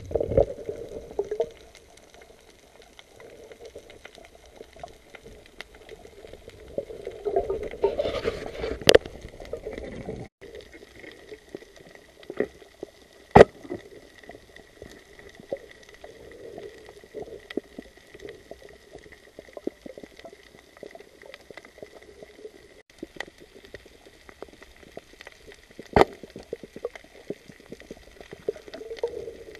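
Underwater water noise around the camera: an uneven bubbling and sloshing rumble that swells about 7 to 9 seconds in, with a few sharp clicks, the loudest about 13 seconds in. A faint steady high tone runs under it from about 10 seconds in.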